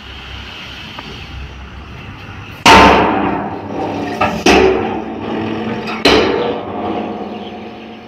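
Tipper truck's hinged steel tailgate clanging three times as the truck pulls forward with its bed raised, each clang ringing briefly, the first the loudest, over the low steady running of the truck's engine.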